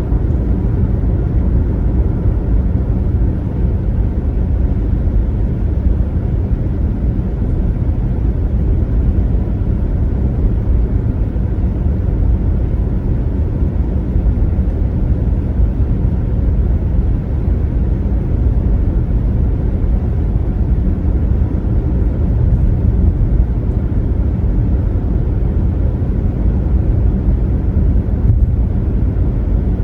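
Steady low rumble of a car driving at highway speed: tyre and road noise with the engine underneath, unchanging throughout.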